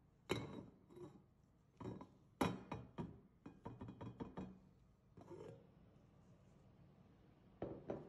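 Glass plate knocking and clinking against the rim of a stainless-steel pot as it is handled and lifted off: a series of sharp knocks, with a quick run of small clicks between about three and a half and four and a half seconds in.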